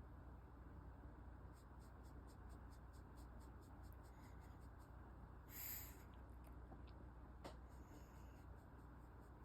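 A cat sneezes once, short and soft, a little past halfway through, against near silence. Faint light ticks come before it and a single sharp click follows about two seconds later.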